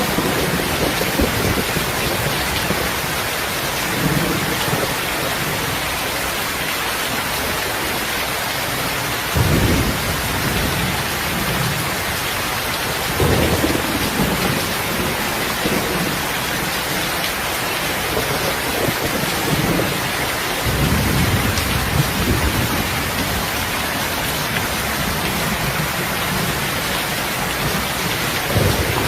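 Steady, heavy rain. Several low rumbles of a second or two rise under it, about a third of the way in, near halfway, and again about two-thirds through.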